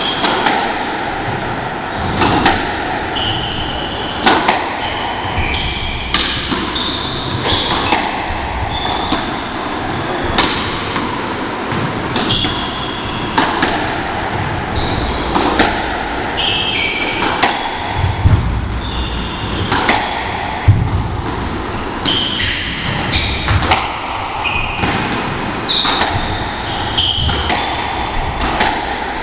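Squash rally: the hard rubber ball cracking off racket strings and the court walls in a quick, irregular series of impacts, with short high squeaks of court shoes on the wooden floor between the shots.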